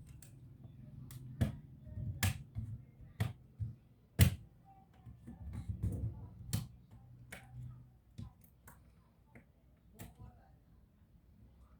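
Irregular sharp clicks and taps, roughly one a second, from small hard parts and tools being handled while a laptop is taken apart; the loudest comes about four seconds in, over a low hum that stops about eight seconds in.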